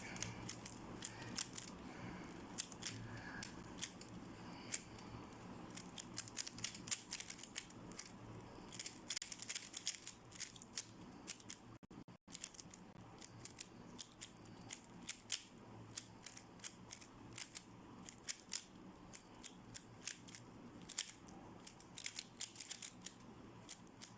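3x3 speed cube being solved fast: rapid, irregular clicking and clacking of its layers turning.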